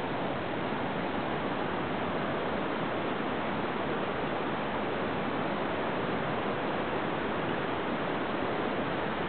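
Steady rushing of a rocky mountain river running over boulders and small rapids.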